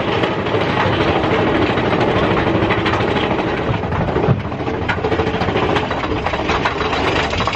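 Big Thunder Mountain Railroad mine-train roller coaster cars running along the track at speed, a steady rattle and rumble.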